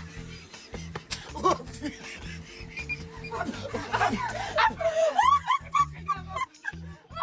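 A group of people laughing over background music.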